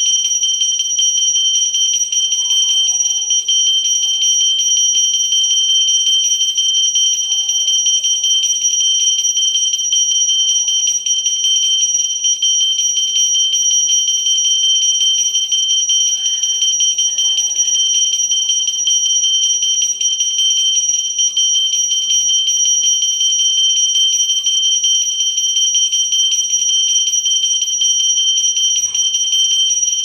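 Brass puja hand bell (ghanti) rung without pause, its clapper striking so fast that the ringing merges into one steady, high, unbroken ring.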